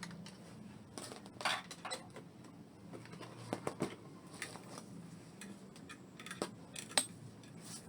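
Scattered light clicks and knocks of hard plastic parts being handled while a portable sewing machine and its accessories are set up.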